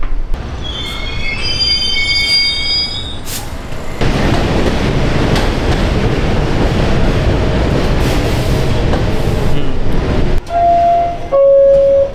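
Metro train on the rails: wheels squealing with a wavering high screech for the first few seconds, then a loud steady rumble as the train runs past. Near the end come two loud held tones, the second lower.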